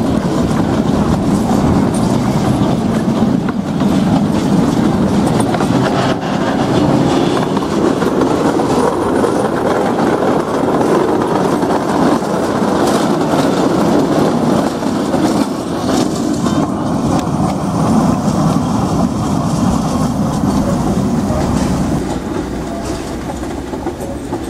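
Narrow-gauge mining-railway train of open mine-car coaches running on the rails, with a steady rumble and a clatter of wheels over the track. It eases off near the end as the train moves away.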